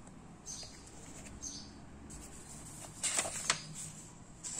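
A paper page of a book being turned, a short rustle about three seconds in, with a small bird chirping faintly about once a second in the background.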